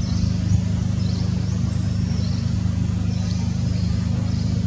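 A steady low motor hum, like an engine running, holding an even level throughout. Short high-pitched chirps come and go over it.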